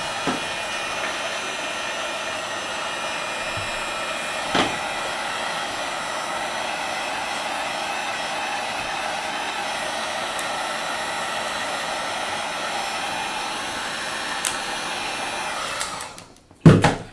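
Hot-air blower running steadily, heating the tablet's screen to soften the thick adhesive holding the glass. It cuts off near the end, and a sharp knock follows.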